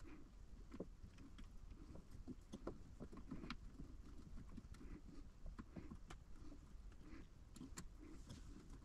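Faint clicks and light scraping of a metal spool-holder bracket being handled and fitted against the back panel of a 3D printer.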